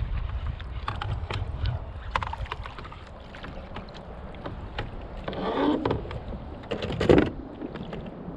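Wind rumbling on the microphone and water moving against a kayak, with many small knocks and clicks of gear being handled. A louder rushing patch comes about five and a half seconds in, and a sharp knock, the loudest sound, about seven seconds in.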